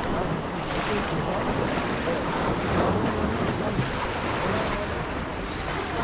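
Surf washing onto the shore, a steady rushing noise, with wind buffeting the microphone.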